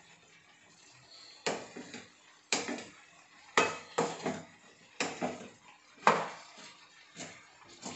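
Spatula scraping and knocking against a nonstick frying pan while stirring a dry mix of grated coconut and onion. The strokes come as a series of sharp clatters about once a second, starting about a second and a half in.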